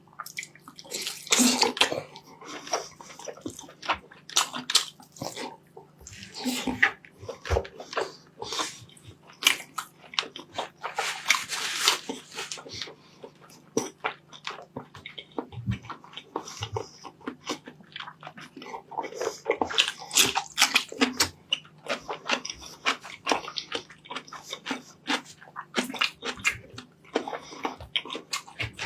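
Close-miked mukbang eating sounds of rice and meat: wet chewing and lip smacking, a dense run of small irregular smacks with louder wet bursts every second or two, over a steady low hum.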